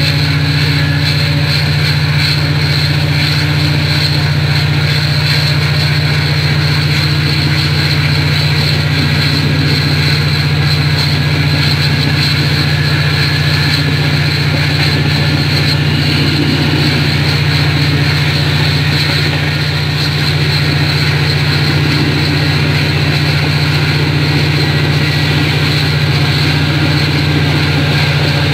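Diesel passenger train's engine droning steadily with a constant low hum as the train runs along.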